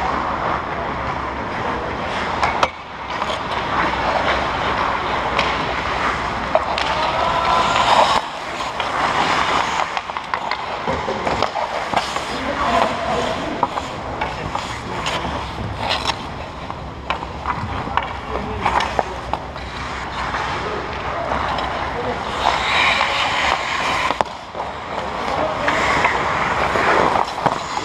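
Hockey skate blades scraping and carving on the ice around the goal, with sharp clacks from sticks and pucks now and then and players' voices calling out.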